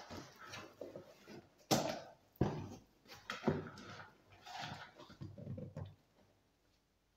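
Corrugated cardboard box being opened by hand: its flaps scrape and flap back in a series of sharp rustles and knocks, which stop about six seconds in.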